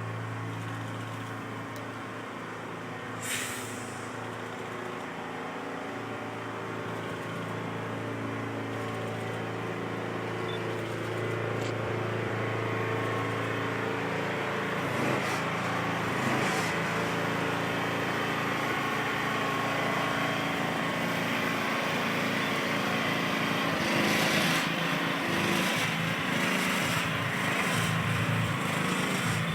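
Heavy truck's diesel engine running steadily at low speed, with a short hiss of air about three seconds in; the engine noise grows louder through the second half.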